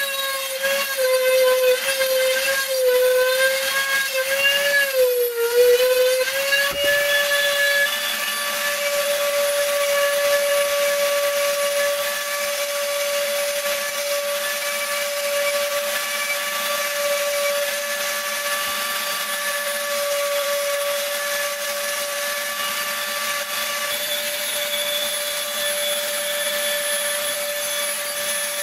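Dremel rotary tool on a flex shaft with a diamond burr, grinding the petals of a stone flower. A steady high motor whine over a gritty grinding hiss; the whine's pitch wavers for the first six seconds or so, then holds steady.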